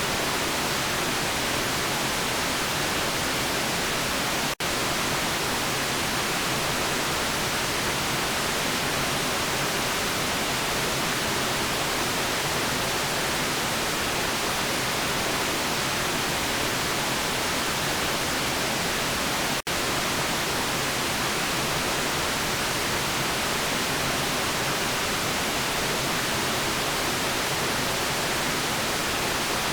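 Steady, even white-noise hiss with no changes in pitch or rhythm. It cuts out for an instant twice, about five seconds in and about twenty seconds in.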